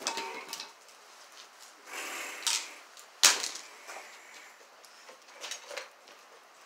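Handling and movement noises from someone working close to the microphone: rustling and a few short clicks, with one sharp knock a little over three seconds in, the loudest sound.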